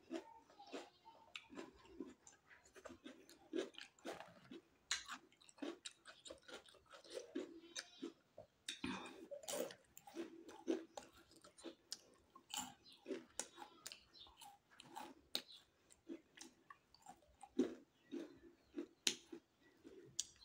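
A person chewing food, with irregular sharp crunches and mouth clicks.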